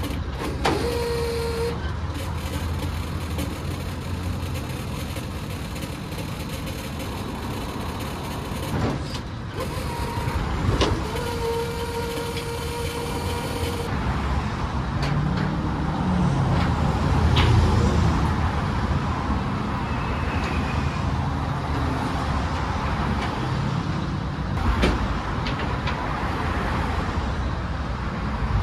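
Steady low rumble of an idling truck engine with busy-road traffic around it, while a car hauler is being unloaded. A few sharp clanks, and a high steady whine that holds for about a second near the start and again for about three seconds a little before the middle.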